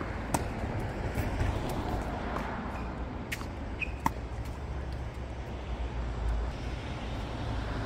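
Tennis ball struck off the strings of a Babolat Pure Aero racket, sharp pops about a third of a second in and again about four seconds in, with a few fainter ball hits and bounces between, over a steady low outdoor rumble.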